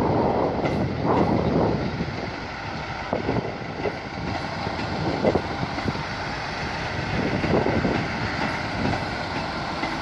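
Class 158 diesel multiple unit pulling out of the station and passing close by, its underfloor diesel engines running under power. Its wheels clatter irregularly over the rail joints.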